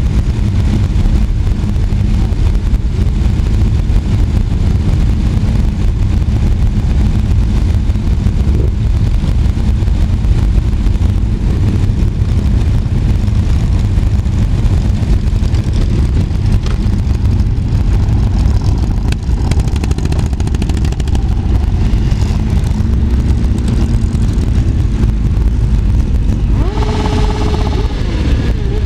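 Many motorcycle engines running together in a steady, loud low rumble as a group of bikes idles and moves off, with an engine note rising and falling near the end as a bike is revved.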